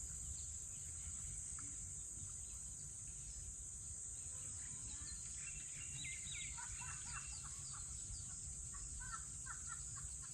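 African bush ambience: a steady high-pitched insect drone, with bursts of short bird chirps and calls from about halfway through.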